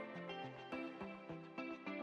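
Instrumental background music, with pitched notes that strike and change several times a second.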